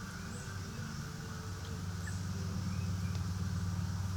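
Steady low mechanical hum, like a motor running, with a few faint short bird chirps over it.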